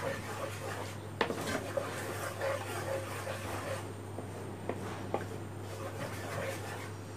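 A spatula stirs milk in a nonstick pan, scraping the bottom, with a few sharp ticks where it knocks against the pan, over a steady low hum.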